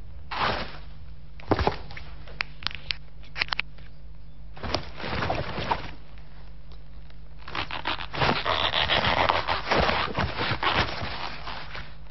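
Scattered short scrapes and clicks, then a longer stretch of crackling, rustling noise from about seven and a half to eleven seconds in, over a low steady hum.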